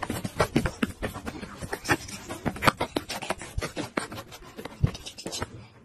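Irregular rustling, scuffling and thumps on bedding as a cat pounces and scrambles over a blanket, with many sharp crackles and knocks that die away near the end.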